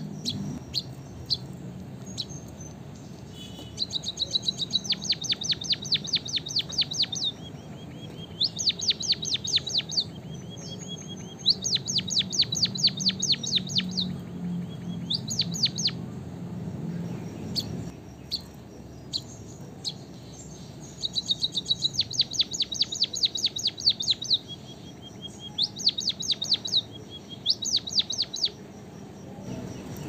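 White-headed munia singing: about seven runs of rapid, high, clicking notes, each run lasting one to three seconds, with softer lower notes and short pauses between runs.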